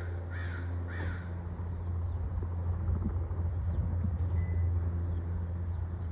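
Steady low drone of a helicopter circling overhead, growing louder. A crow caws three times in the first second.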